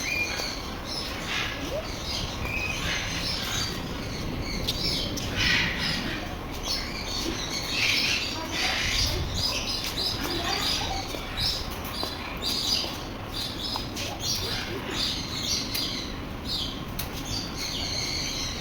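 A flock of small aviary birds chirping and fluttering: a dense, continuous stream of short high calls.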